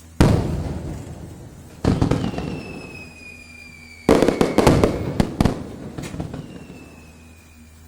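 Fireworks going off: three sudden loud bangs, each trailing off in crackle over a second or more, with high whistles falling slowly in pitch between them.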